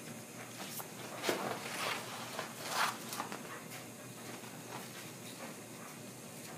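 Vinyl decal sheets being cut apart and handled: a few short rustling, scraping sounds over the first three seconds or so.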